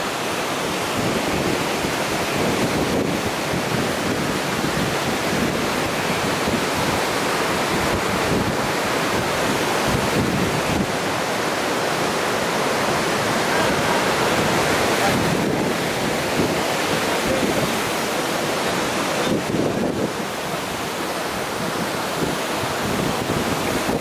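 Waterfall rushing steadily into its plunge pool, a constant roar of falling water, with wind buffeting the microphone.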